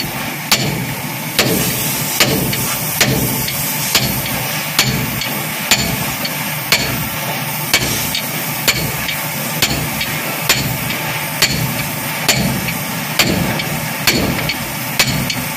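Steel hammer striking a drift against a truck's leaf-spring pin at a steady pace of about one sharp metal-on-metal blow a second. The strikes drive the spring pin that holds the main leaf into the spring hanger.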